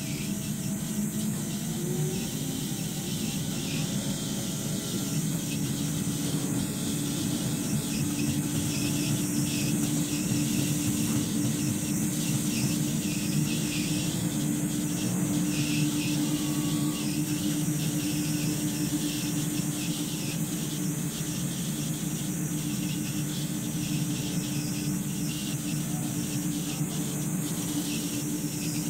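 Automatic cutting machine running steadily: a constant low hum with a high-pitched whine or squeal above it.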